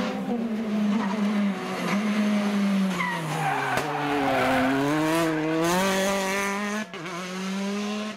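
Rally car engine running hard through a tight tarmac hairpin: the revs drop as it brakes into the bend, bottom out about halfway through, and climb again as it accelerates out.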